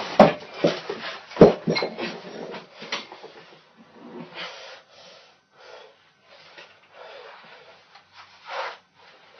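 A man pinned under a loaded barbell on a bench, straining and gasping: loud strained cries in the first two seconds, then shorter, weaker grunts and breaths at intervals.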